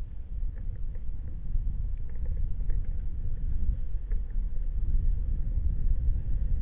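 Steady low rumble of a moving vehicle, with a faint steady hum above it.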